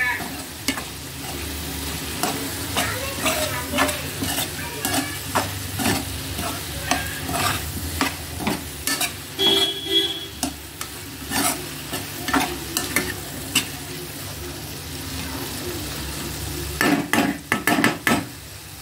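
Metal spoon stirring cauliflower florets in a thick tomato masala in a metal pan, scraping and knocking irregularly against the pan, busiest near the end. The curry sizzles steadily underneath.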